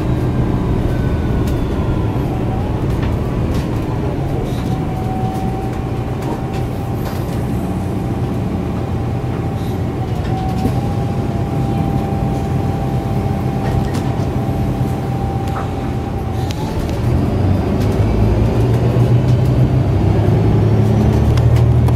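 Inside the cabin of a MAN A69 18.320 bus: its 10.5-litre MAN D2066LUH six-cylinder diesel and Voith DIWA automatic drivetrain running on the move, with a whine that glides down over the first few seconds and then holds steady. Near the end the engine rumble grows louder.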